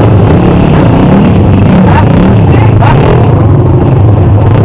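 Dirt bike engine idling, loud and steady, with no revving.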